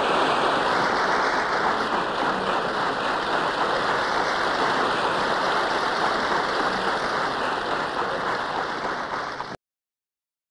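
Steady rushing noise on an old cassette-tape transfer, muffled with little treble, cutting off abruptly to silence near the end.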